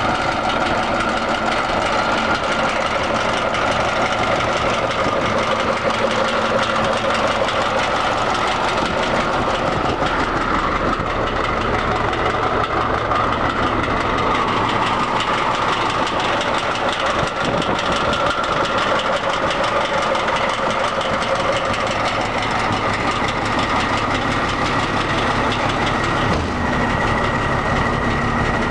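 Diesel engine of a 1991 International day-cab semi truck idling steadily with a rhythmic clatter.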